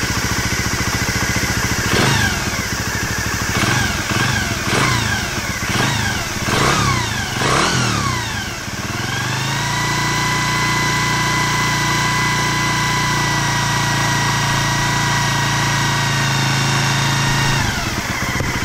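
Honda Dream 50's small single-cylinder four-stroke engine running: after a short idle it is revved in about six quick throttle blips, each rising and falling back, then held at steady higher revs for about eight seconds before dropping back to idle near the end.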